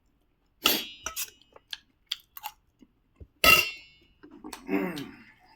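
Close-up eating sounds. Two sharp clinks of metal tableware ring briefly, about half a second in and again about three and a half seconds in, with small mouth clicks between them. A short voiced murmur comes near the end.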